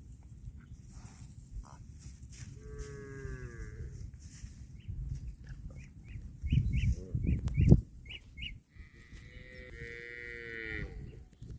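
Cattle mooing: a drawn-out moo about three seconds in and two more near the end, over low rumbling noise. A string of short high chirps runs through the middle, with a louder low rumble just before the second moo.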